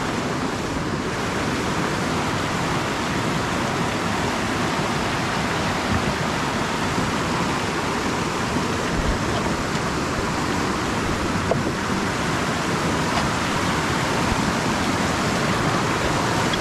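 Fast mountain river rushing over rocks and rapids: a steady, loud roar of white water.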